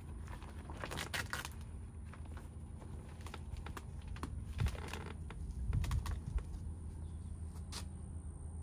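Nylon tent rain fly rustling as it is handled and lifted, with scattered small clicks and a couple of dull thumps over a steady low background rumble.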